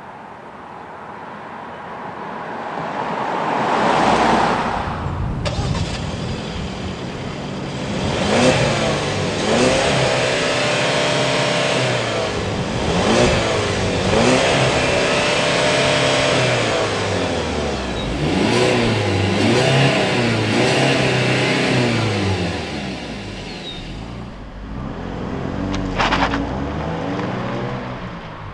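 2013 Hyundai Santa Fe Sport's four-cylinder engine and exhaust, revved up and down several times, the pitch rising and falling with each rev.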